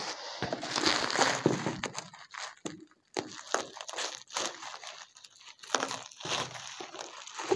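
Bubble-wrap plastic packaging crinkling and rustling as it is cut with scissors and pulled open by hand, in an irregular run of crackles and short snaps.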